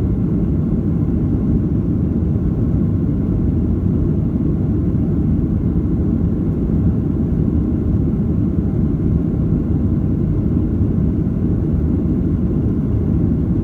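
Steady low rumble inside the cabin of a Boeing 737-700 in its climb, the CFM56-7B turbofans at climb power mixed with air rushing past the fuselage.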